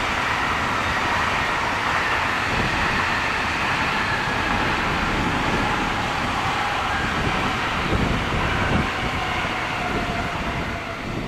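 Electric train running through the station: wheels rumbling on the rails, with a motor whine that slowly falls in pitch and a few heavier thumps about eight seconds in.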